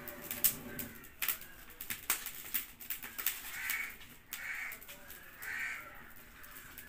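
Sharp snaps and clicks of firewood in a burning wood-fired clay stove as sticks are pushed into the fire; the loudest snap comes about half a second in. From the middle on, a crow caws three times.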